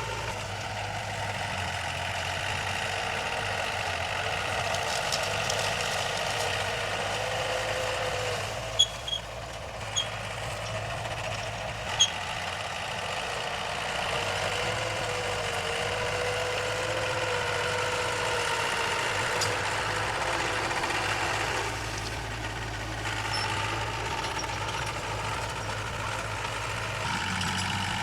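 Heavy diesel engines of earth-moving machinery (dump truck and bulldozer) running steadily, the pitch rising and falling a little. Three or four brief sharp high blips stand out between about nine and twelve seconds in.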